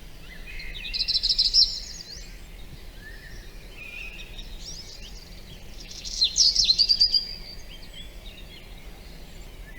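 Wild birds singing and chirping, with two louder, rapid trilled phrases, one about a second in and one about six seconds in, and fainter calls between them. A steady low background rumble runs underneath.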